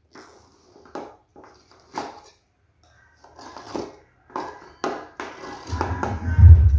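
A knife run around the inside wall of an aluminium cake pan to loosen a sponge cake, making a string of short scrapes and clicks of metal on metal. Near the end comes a louder, deep rumble as the pan is gripped and handled on the counter.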